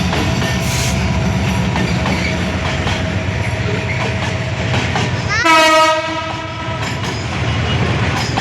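Freight train running on the rails with steady wheel rumble and clatter over the rail joints. Just past halfway the locomotive sounds one horn blast of about a second that rises in pitch as it starts.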